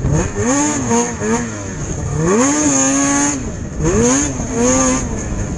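Snocross racing snowmobile's two-stroke engine under hard throttle, revving up and dropping back several times as the rider works the throttle over the track, held at high revs for about a second in the middle.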